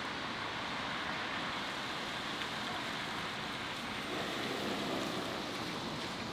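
Steady hiss of background noise, swelling slightly about four seconds in.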